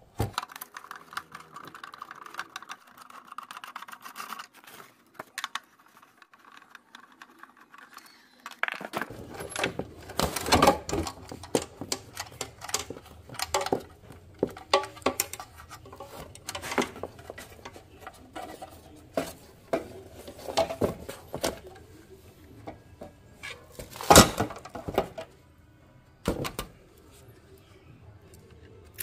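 Irregular clicks, taps and clinks of small hard parts and tools being handled, during work on a cassette player. There is a quieter pause of a few seconds, then a run of closer clatter, and one louder knock near the end.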